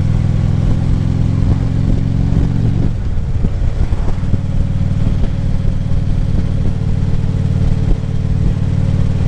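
Harley-Davidson Ultra Classic Limited V-twin engine running on the road at a steady speed, with a change in the engine note about three seconds in.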